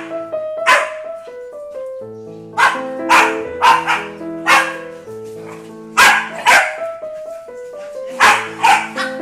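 Dogs and puppies barking in play, about ten short sharp barks in quick pairs and runs, over background music of steady held notes.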